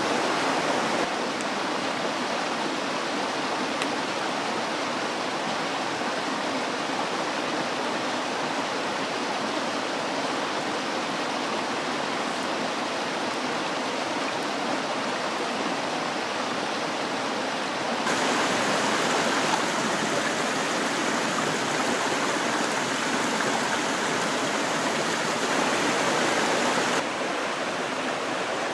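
A steady rushing noise with no distinct events; it steps a little louder about two-thirds of the way through, then drops back near the end.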